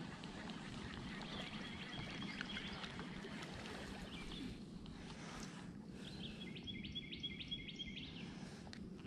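Birds singing, with a quick run of repeated chirps about two-thirds of the way through, over a faint steady background hum.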